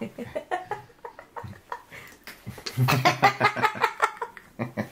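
A woman and a man laughing hard together, in quick loud bursts that peak past the middle, while they play with a small dog.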